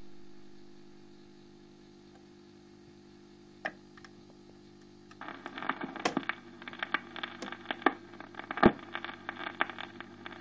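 Dansette record player humming steadily, with a single click about three and a half seconds in. From about five seconds in the stylus runs on a record pieced together from sliced discs, giving dense irregular crackle and clicks.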